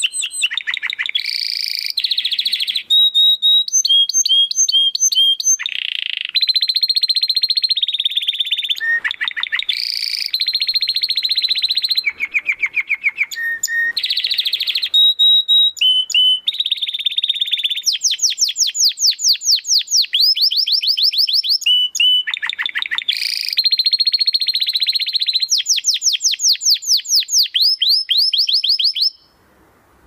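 Domestic canary singing a long, loud, unbroken song of rapid trills and repeated high whistled notes, switching to a new phrase every second or two. The song stops abruptly near the end.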